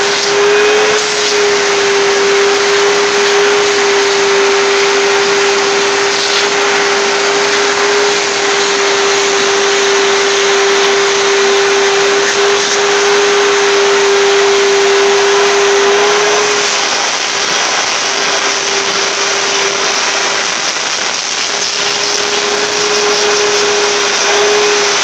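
Shop-vac running steadily as its hose is worked over a cat's coat, a steady rushing of air with a strong, even whine. The whine weakens about two-thirds of the way through and comes back near the end.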